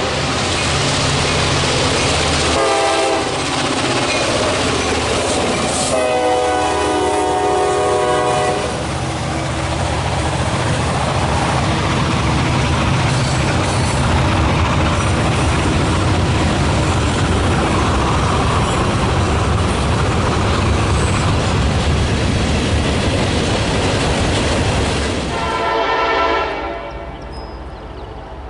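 Freight diesel locomotive's multi-chime air horn blowing, a chord of several tones: sounding at the start, again as a long blast about six seconds in, and once more near the end. Between the blasts the train passes close with a steady rumble of engines and wheels on the rails, which falls away suddenly near the end.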